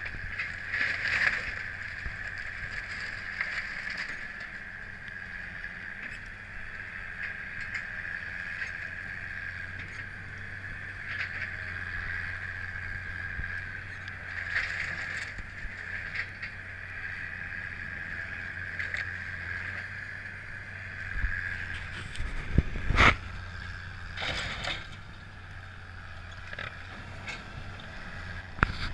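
Link-Belt tracked excavator running steadily, its engine hum carrying a steady high whine, while it tears into the wrecked wooden house. There are several crashes of breaking timber and debris, the loudest a little past the middle.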